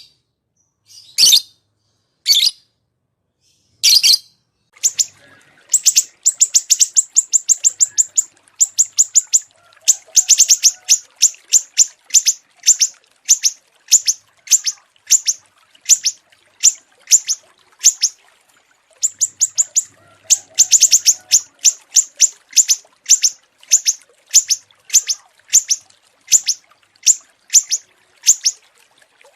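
Small songbird chirping in quick repeated high notes: a few sharp single calls at first, then fast rattling runs of chirps that slow to an even series of about two chirps a second.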